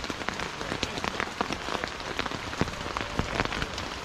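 Rain falling on a tent, heard from inside it: a steady hiss dotted with many sharp, irregular taps of single drops hitting the fabric.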